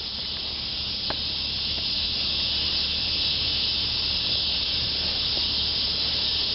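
Chorus of 17-year periodical cicadas: a dense, steady high-pitched hiss that grows louder over the first few seconds, then holds.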